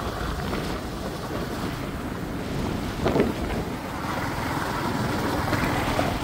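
Steady wind rush over the microphone, with the low rumble of a moving vehicle beneath it.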